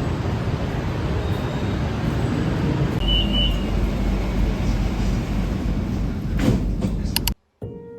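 Steady low rumbling noise of a moving vehicle ride, cutting off abruptly near the end.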